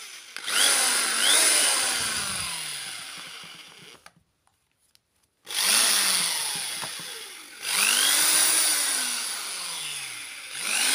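AB-60PW electric hand drill's motor triggered in four short runs: each time it spins up sharply, then winds down with a falling whine as the trigger is let go. There is a short silence about four seconds in. It starts every time while the repaired power cord, whose broken wire had made the drill cut out, is flexed.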